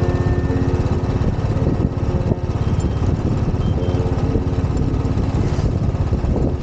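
Motorcycle engine running steadily under way, its rapid firing pulses close and loud.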